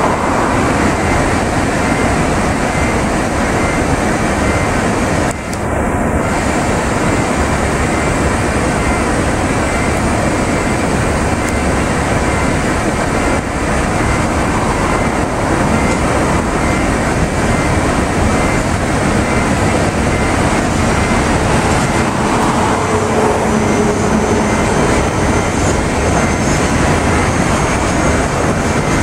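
Iwate Development Railway freight train of loaded Hoki 100 hopper wagons rolling slowly past, worked by a DD56 diesel locomotive. Wheels on rail and the engine make a steady, loud noise with no breaks.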